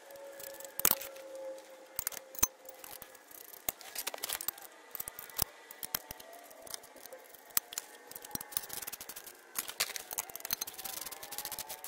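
Steel bolts and nuts being fitted to a Brinly sleeve hitch cultivator's steel frame: scattered metal clinks and a few sharper knocks, then a socket ratchet clicking in quick runs near the end as the nuts are tightened.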